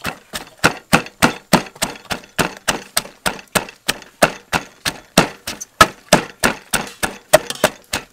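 Wooden pestle pounding chopped vegetables and herbs in a clay mortar: steady, even knocks, about three or four strokes a second.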